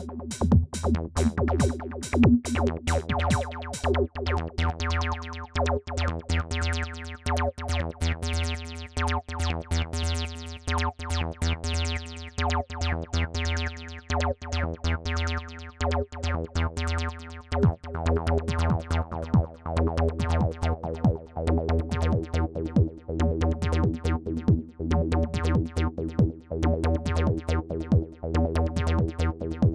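Electronic background music with a steady drum-machine beat, synthesizer chords and a heavy bass line; the high end opens up in a filter sweep over the first few seconds.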